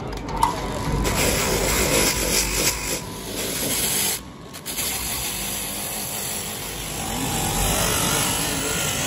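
Air-powered grinder with a wire-brush wheel buffing the rubber of a tyre sidewall: a steady, harsh scraping that cuts out briefly about four seconds in, then runs on.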